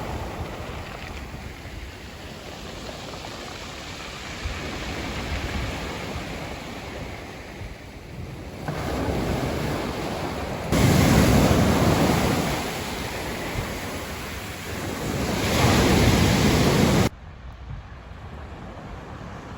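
Outdoor rushing noise that swells in surges, strongest twice in the latter half, then drops away abruptly near the end.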